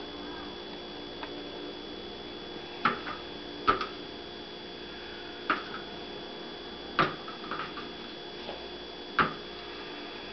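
A cat's paws knocking against a closed door as it leaps and bats at a laser dot: five sharp knocks at uneven intervals over a steady hum.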